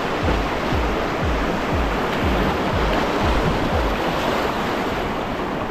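Rushing whitewater of a river rapid pouring around a kayak. Through the first four seconds a quick series of low thumps, about two or three a second, comes as the boat rides through the wave train.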